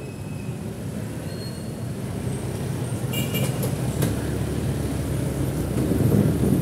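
City street traffic heard from a moving vehicle: a steady low rumble that grows louder as a jeepney passes close by. A brief high squeal comes about three seconds in.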